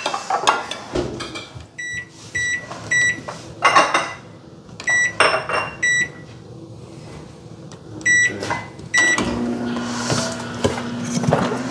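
Microwave oven keypad beeping as buttons are pressed: three short beeps, a pause, two more, a pause, then three more, after which the oven starts running with a steady low hum for the last couple of seconds. Serving spoons clink against dishes in between.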